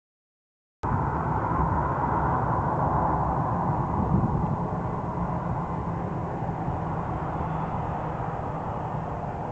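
Jet airliner passing, its engines giving a steady rumble with a broad noisy band on top that swells and then slowly eases. It cuts in suddenly about a second in, after a short silence.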